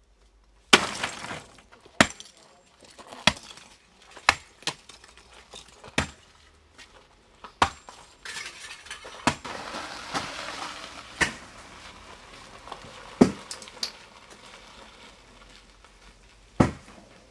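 Sledgehammer blows cracking large lumps of coke: a run of sharp, clinking impacts with pieces breaking apart, then a few seconds of coke lumps rattling and clattering as they are sorted, with single knocks in between.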